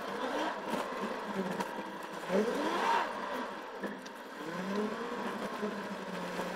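Car engine and road noise while driving, the engine note rising and falling in pitch a few times as the car speeds up and eases off.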